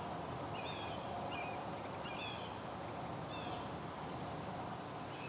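Steady high-pitched insect drone, with a few short, falling bird chirps over it.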